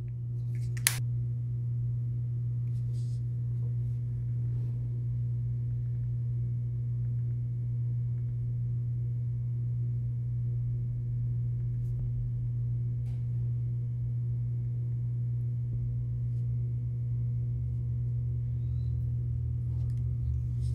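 A steady low hum with fainter higher tones above it, unchanging throughout, and a single sharp click about a second in.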